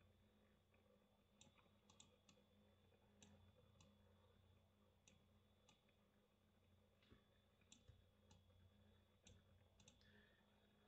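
Near silence broken by about a dozen faint, irregular clicks of a computer mouse, over a steady low electrical hum and a thin high whine.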